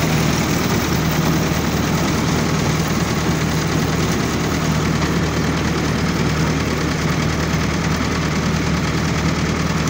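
Old self-propelled combine harvester running: engine and machinery going steadily with an even low drone.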